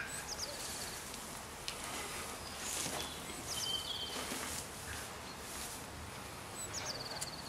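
A small songbird sings the same short phrase three times, about three seconds apart: two quick high notes followed by a fast trill. Behind it are a steady outdoor hiss and a few light clicks and rustles close by.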